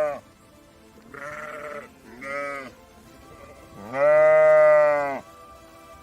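Sheep bleating: the end of one call, then two short bleats and one long, loud bleat about four seconds in.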